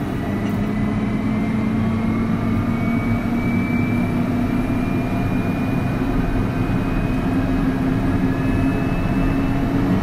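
Pilatus PC-12's Pratt & Whitney PT6A-67P turboprop spooling up during its engine start just after light-off, heard from inside the cockpit. A steady rumble with tones slowly rising in pitch as the starter and combustion accelerate the gas generator and the propeller begins to turn.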